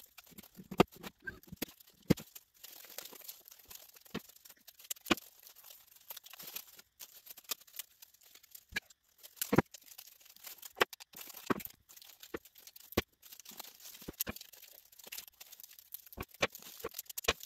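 Folded paper crinkling and rustling as a paper accordion is handled, with many irregular sharp clicks and taps.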